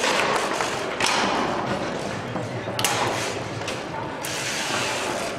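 Foosball play on a Tornado table: steel rods sliding and rattling through the cabinet and the ball knocking against the plastic men. Sharp clacks stand out at the start, about a second in, and just before three seconds.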